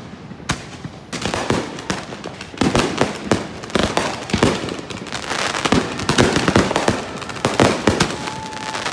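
Aerial fireworks bursting in rapid succession: many sharp bangs and crackles overlapping throughout, with a short steady whistle near the end.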